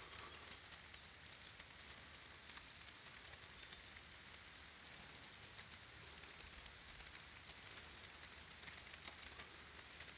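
Faint light rain falling: a soft, even hiss dotted with scattered drip ticks. A bird gives a few short, high chirps near the start.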